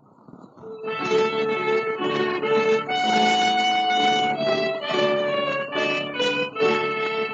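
Old 78 rpm shellac record: for about a second there is only faint surface hiss, then an orchestra starts playing the opening of a Ukrainian folk song.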